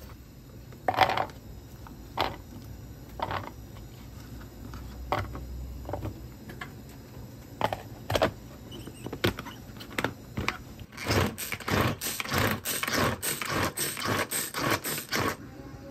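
A few scattered clicks and knocks, then a hand-pulled cord vegetable chopper yanked over and over, its blades whirring and rattling as they mince vegetables in the plastic bowl, two or three pulls a second for about four seconds before stopping sharply.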